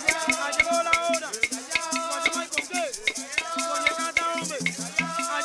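Afro-Dominican congo music of Villa Mella: maracas and congo drums keep a quick, steady beat under a sung chant.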